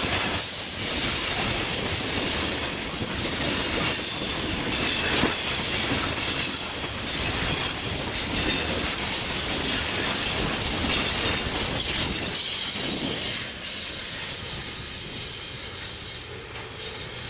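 Loaded coal hopper cars rolling past close by, with a steady wheel-on-rail rumble and clatter and an intermittent high wheel squeal. The noise fades over the last few seconds as the end of the train moves away.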